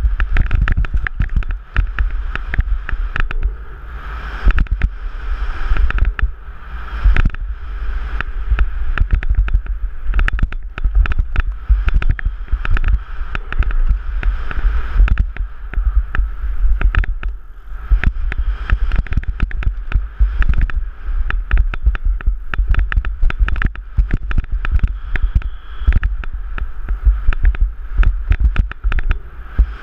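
Downhill mountain bike ridden fast over rough dirt, heard from a helmet-mounted camera: constant wind buffeting on the microphone with a dense rattle of sharp knocks and clatter from the bike over the bumps.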